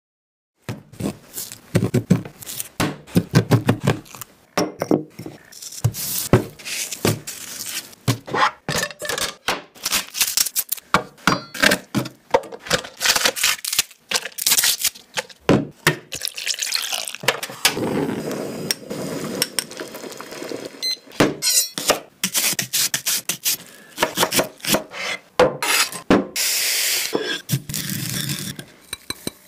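Close-miked cooking sounds begin after a brief silence: many sharp knocks, taps and clinks of utensils against pots, bowls and boards, with stretches of rustling, noisy food handling. Near the end comes the gritty grind of a wooden pestle working sesame seeds in a ridged ceramic mortar (suribachi).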